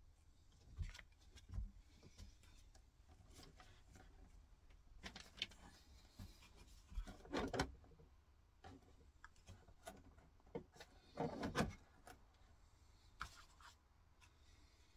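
Small plastic scale-model accessories being handled and set down on a paper-covered workbench: faint scattered clicks, taps and rubbing, with a few louder clusters of handling noise.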